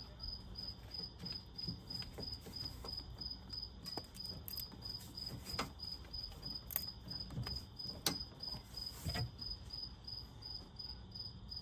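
A cricket chirping steadily in an even, high pulsing rhythm, faint, with scattered light clicks and knocks of hand work on the truck.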